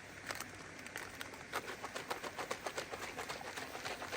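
Plastic MRE drink pouch holding water and orange drink powder being shaken to mix it. A few scattered crinkles at first, then quick rhythmic shaking from about a second and a half in, around four to five strokes a second.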